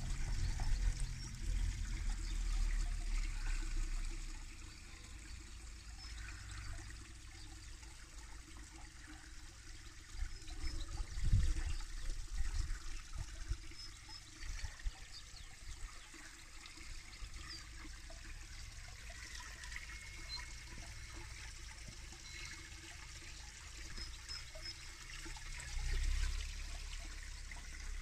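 Small rockery waterfall trickling steadily into a garden fish pond. Low rumbling on the microphone comes and goes: in the first few seconds, about a third of the way in, and again near the end.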